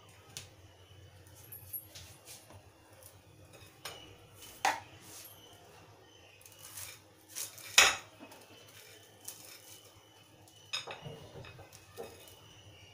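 A kitchen knife clinking and scraping on a glass plate as grilled sandwiches are cut and moved, with scattered sharp clicks; the loudest clink comes about eight seconds in.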